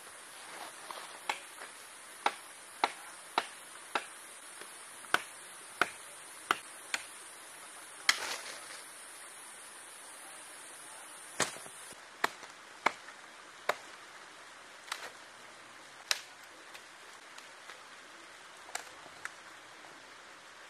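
Wood being chopped with a blade: a run of sharp strikes about two a second, the loudest about eight seconds in, then slower, sparser strikes after a short pause.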